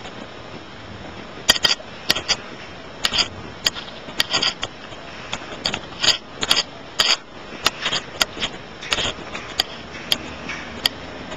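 Irregular sharp clicks and knocks, roughly two a second, starting about a second and a half in, over a steady hiss.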